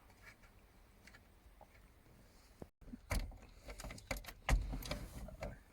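Metal hand tools clinking and knocking on bolts under a car, in irregular sharp clicks with a few dull thuds, starting about three seconds in after a quiet stretch with faint ticks.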